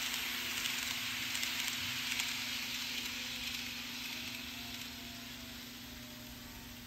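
N gauge model of a JR West 223 series electric train running along the track: a steady rolling rattle of wheels on rail with a faint motor hum, fading through the last few seconds as the train draws away.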